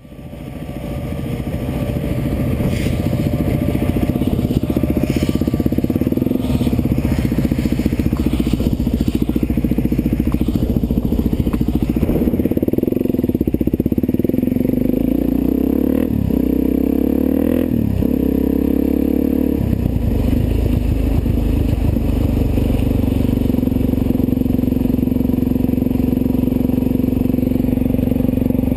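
Suzuki DR-Z400 single-cylinder four-stroke engine running while the bike rides along. Its pitch dips and rises a few times between about 12 and 20 seconds in, then holds steady. The sound fades in over the first second.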